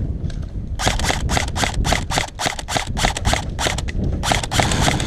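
Airsoft gun firing rapid repeated shots, about six or seven a second, in a long string and then a short second burst near the end.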